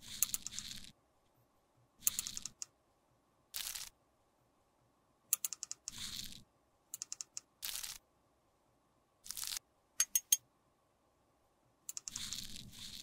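Metal spatula scooping and pressing crumbly pressed-powder eyeshadow into the metal pans of a palette: short crunchy scrapes alternating with quick runs of sharp taps, with silent gaps between them.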